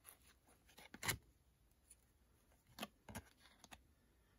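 Faint swishes and clicks of chrome trading cards being slid off a stack in the hand, one card at a time, with a sharper snap about a second in and two more near the end.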